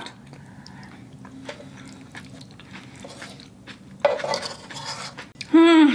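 Wooden chopsticks and a wooden spoon clicking and scraping against the pan of an electric skillet as the last spaghetti is gathered up, with a louder scrape about four seconds in. A short vocal sound comes from the eater near the end.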